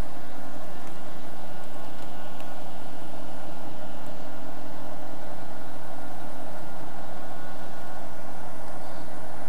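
Electric heat gun running steadily, its fan blowing with a constant noise and a low hum underneath.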